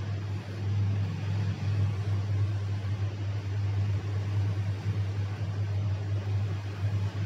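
Hot-air rework station blowing a steady rush of air with a low hum through its nozzle onto a fluxed eMMC BGA chip, reheating it so the new solder balls reflow into shape.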